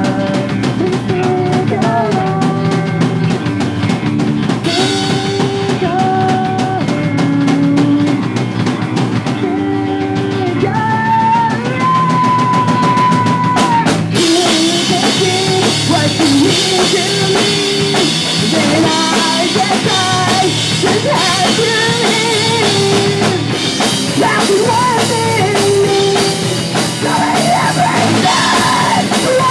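A pop punk band playing live: drum kit with bass drum, full band behind a sung melody. The sound turns fuller and brighter about halfway through as the cymbals come in harder.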